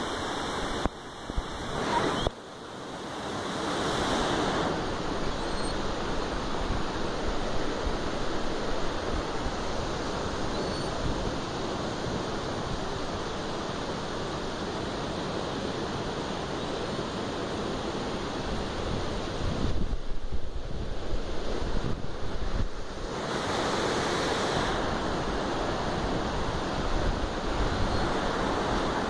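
Rapids of a rocky river rushing steadily below, an even wash of water.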